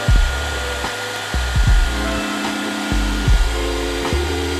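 Background music with a steady beat and a bass line, over a steady rushing noise.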